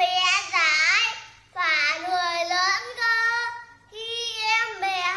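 A young boy reciting a Vietnamese poem in a sing-song chanting voice, in short phrases with brief pauses between lines.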